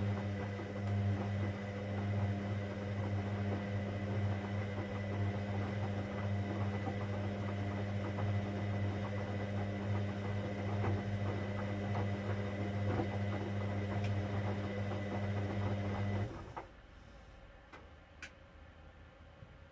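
Hoover Dynamic Next washing machine running its cotton 60 programme: a steady low hum with a light rattle that cuts off suddenly near the end, followed by a couple of faint clicks.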